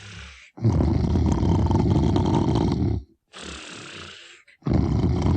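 Brer Bear's snoring from Disneyland's Splash Mountain, a cartoon bear character's exaggerated snore. Two long, low, rattling snores of about two and a half seconds each are separated by a softer, airy breath; the second begins near the end.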